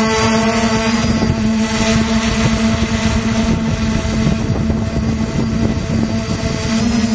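The brushless motors and propellers of an F450 quadcopter humming steadily, heard close up from the camera mounted on the drone. Wind buffets the microphone. The hum turns rougher from about a second in until near the end.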